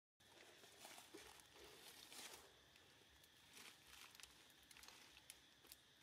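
Near silence, with faint scattered clicks and soft rustling.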